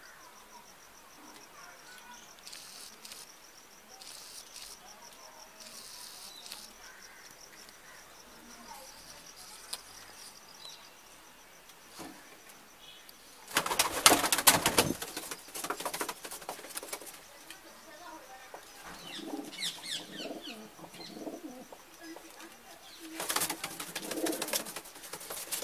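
Domestic pigeons in a loft: a loud flurry of wingbeats about halfway through, lasting about a second and a half. Cooing follows, and a second, shorter burst of flapping comes near the end.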